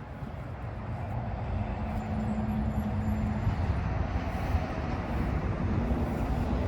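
A motor vehicle's engine running, a low rumble with a steady hum that grows louder about a second in.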